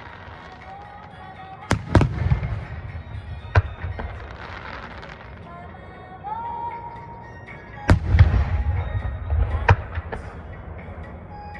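Aerial firework shells bursting. There are two sharp bangs close together about two seconds in, another about three and a half seconds in, and the loudest near eight seconds followed by low rumbling booms, with one more near ten seconds. Music plays faintly underneath.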